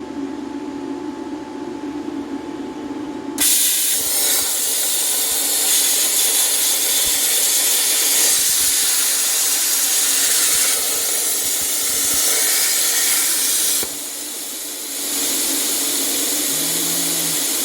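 Loud steady hiss of a jet of compressed gas, in two long stretches with a short break about 14 seconds in.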